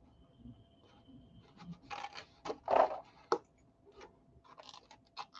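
Cardstock pieces being folded and handled on a cutting mat, with a wooden clothespin picked up: a run of rustles and scrapes with a few sharp clicks, loudest about three seconds in.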